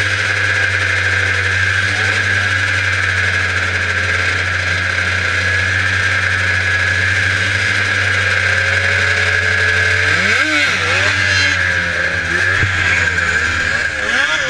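Vintage John Deere 440 superstock snowmobile's two-stroke engine idling steadily, then revved in quick rises and falls about ten seconds in and again near the end.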